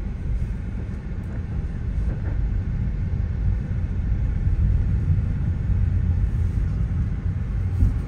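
Steady low rumble of a car's engine and tyres heard from inside the cabin, with a brief low thump near the end.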